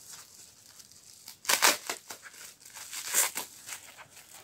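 Paper packing wrap crinkling and rustling as a small wrapped item is unwrapped by hand, with two louder crackly rustles about a second and a half in and again near three seconds.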